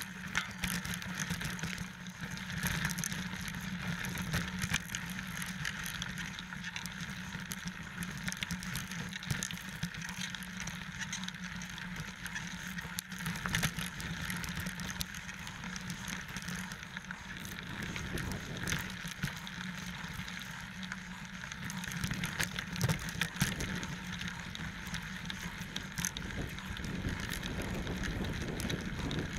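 29er mountain bike rolling over a dirt and gravel trail: steady tyre noise with frequent rattles and knocks from the bike as it goes over bumps.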